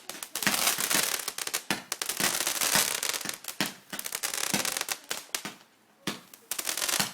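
Fireworks going off: a dense run of rapid crackling pops for about five seconds, then a short lull and a few separate sharp cracks near the end.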